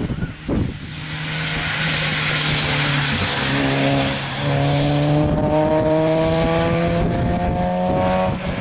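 Peugeot 106 S16 Group N rally car's 16-valve four-cylinder engine revving hard under load, with a hiss of tyres on the wet road. The revs dip briefly about four seconds in, then climb steadily as the car pulls away.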